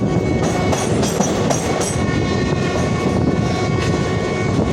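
Train passing at a railway level crossing: a steady loud rumble with irregular clacks from the wheels and a faint steady high whine.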